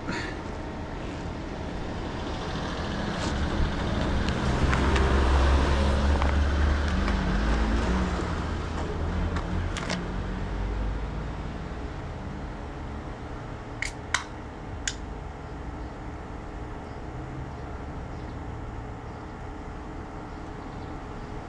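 A road vehicle passes on the road, its engine rumble swelling and fading over several seconds. Later, two or three sharp metallic clicks come from the vending machine as a canned drink is bought.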